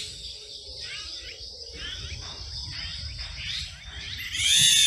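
Outdoor insect chirring, a steady high buzz, with a string of short high chirps and a louder call near the end.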